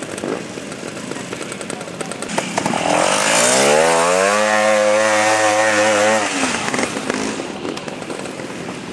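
Trials motorcycle engine revving up about a third of the way in, holding high revs for about two seconds, then dropping back as the bike rides close past.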